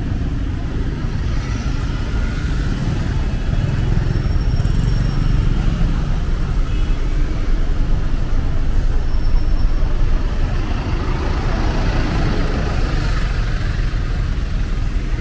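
Busy city street traffic: motorbikes and a bus going by close, a steady engine rumble that grows loudest about halfway through as the bus passes alongside.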